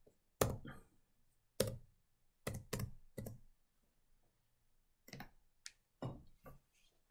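Computer keyboard keys struck one at a time as a short code is typed: about five separate taps in the first three and a half seconds, a pause, then a few more taps and clicks between about five and six and a half seconds.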